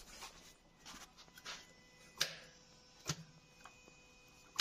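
Maruti Suzuki car's starter clicking as the key is turned, a few sharp clicks about a second apart with no cranking: the starter will not turn the engine over, and the starter motor is faulty.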